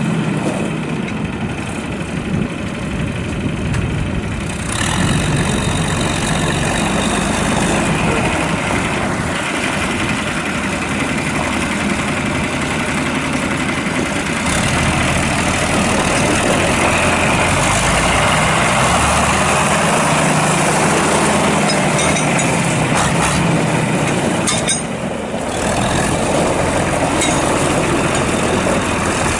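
John Deere 4020's six-cylinder diesel engine running steadily, its pitch and loudness shifting a few times: louder from about five seconds in, with a brief dip near the end.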